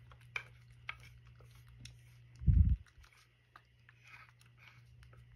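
A spoon clicks and scrapes against a cat's food dish as the food is pushed together, with a dull thump about two and a half seconds in. The cat's soft chewing and licking at the dish follow.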